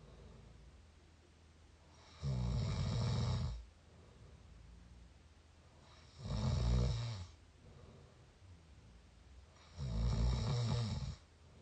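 Mouth snoring recorded up close: three loud snores, each lasting about a second, coming roughly every three and a half to four seconds.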